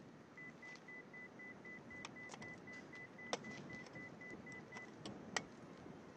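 Rapid, evenly spaced electronic beeping at one high pitch for about four and a half seconds, with a few sharp clicks, two of them louder and about two seconds apart, over faint background noise.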